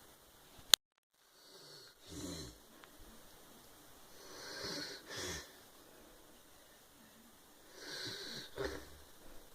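A man snoring in his sleep: three snoring breaths about three seconds apart. About a second in there is a sharp click, and the sound cuts out completely for a moment.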